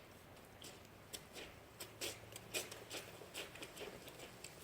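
Faint, irregular light clicks and scrapes of a bird house being handled and fixed in place, the loudest click about two and a half seconds in.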